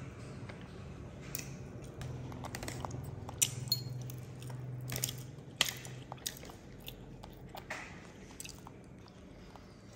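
Eating at a table: chewing and biting, with scattered light clicks and taps of a fork against a plate.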